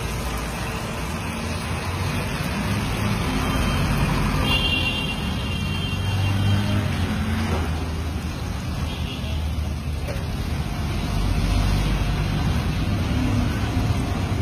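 Steady low rumble of road traffic mixed with the hiss of potato fritters deep-frying in a large wok of hot oil. A brief high tone sounds about five seconds in.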